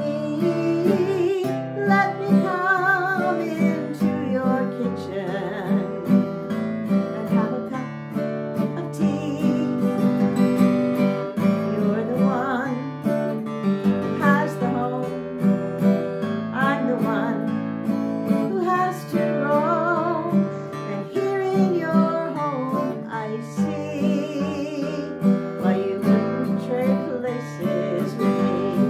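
Acoustic guitar strummed in a steady rhythm, with a woman singing along.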